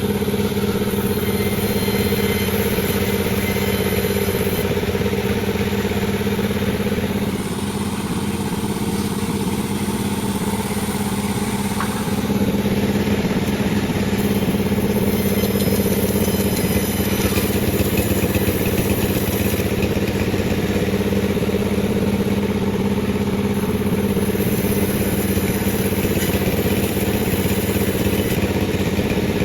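Panda36 two-stroke chainsaw running at high revs, cutting through a durian log with a steady engine note; the note eases slightly for a few seconds about a quarter of the way in.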